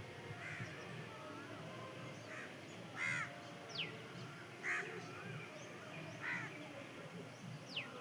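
Several birds calling outdoors: a handful of short, harsh calls spaced a second or two apart, and twice a high whistle that falls sharply in pitch.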